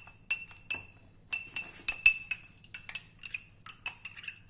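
A metal spoon stirring honey into a glass of warm kadha, clinking against the sides of the glass in a quick, irregular run of ringing clinks, about three or four a second.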